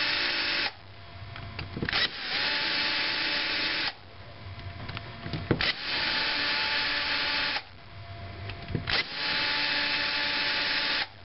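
Cordless drill-driver with its clutch set to 18, backing screws out of the top plate of an HPI K5.9 nitro RC engine. It runs in four bursts, each about one and a half to two seconds long: the first is already running and stops just under a second in, and each later one starts with a rising whine and cuts off suddenly. Short clicks of the bit on the screw heads fall between the bursts.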